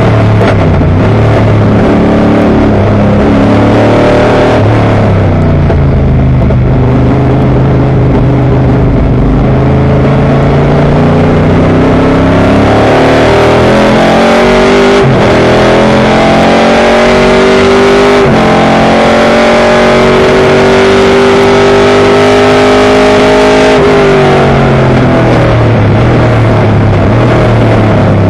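Dodge Hemi Challenger race car's V8 engine at full racing load, heard from inside the car: it climbs through the revs with quick upshifts about halfway through and a few seconds later, then the engine note drops as the driver lifts off for a corner a few seconds before the end.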